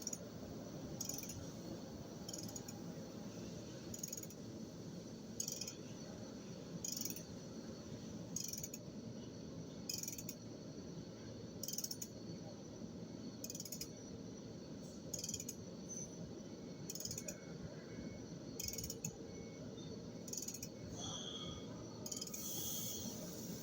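Machine tool running steadily during gate valve machining, with a light metallic click repeating about every one and a half seconds.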